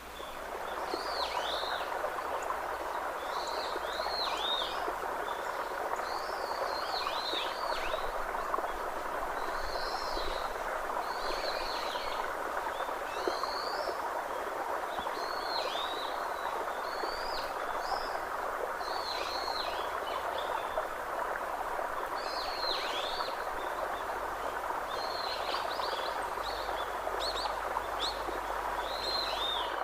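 Short high-pitched chirping calls, repeating about once a second, over a steady rushing background noise, as in a nature soundscape.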